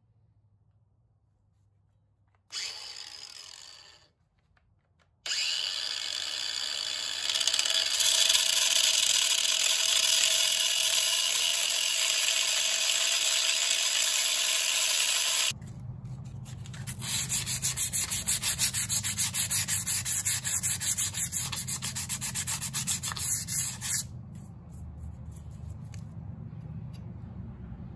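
Angle grinder with a thin cut-off wheel grinding a keyway slot into a 3/4-inch steel rod clamped in a vise. After a brief burst, steady loud grinding sets in about five seconds in; past the middle it turns to a fast rise-and-fall as the wheel works the slot, then drops to a lower level for the last few seconds.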